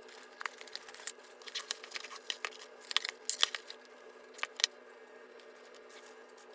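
A run of sharp crinkling, rustling clicks, like thin material or packaging being handled, lasting about four seconds and then stopping, over a faint steady hum.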